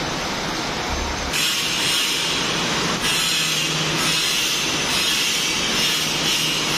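A TIG welding arc hissing steadily on a steel vessel seam. It cuts off abruptly after about a second and is replaced by a brighter, steady workshop noise with a faint hum.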